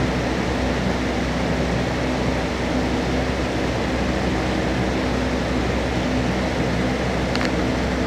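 A steady mechanical hum, like a fan or air-conditioning unit running, with one faint click near the end.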